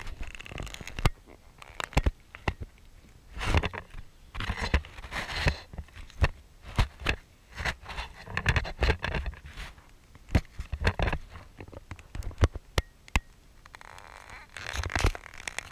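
Handling noise from an African elephant mouthing and handling a GoPro camera: irregular knocks and scraping as its skin rubs and bumps against the camera housing.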